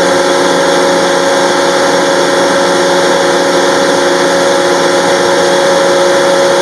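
Gardner Denver 50 HP electric air compressor running steadily: a loud, even machine noise with a constant hum of several steady tones.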